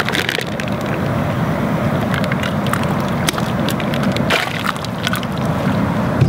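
Outdoor propane burner under a stockpot running with a steady low rush, scattered with light crackles and clicks as a plastic shrink bag holding a chicken is dipped into the hot water.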